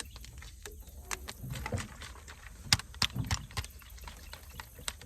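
Water bottle being shaken to mix in electrolyte powder: liquid sloshing with scattered knocks, several in quick succession about three seconds in.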